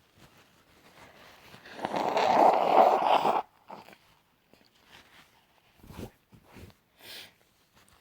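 A woman sneezing once, loudly, about two seconds in: a noisy burst that lasts about a second and a half and cuts off sharply. A few short, quieter sounds follow.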